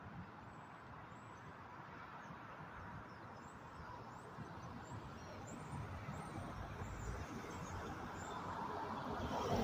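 Road traffic: a van and then a box delivery truck driving past on the street, the traffic noise growing louder toward the end. Birds chirp faintly over it.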